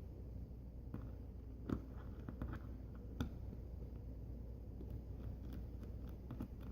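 Faint small clicks and taps of a T5 Torx screwdriver working the tiny screws out of a laptop's back cover, with two sharper taps, one a little before two seconds in and one a little after three.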